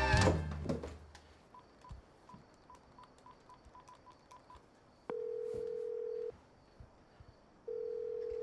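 Phone keypad beeps as a number is dialled, about a dozen quick tones, then the ringback tone of the call ringing: two long steady buzzes with a pause between.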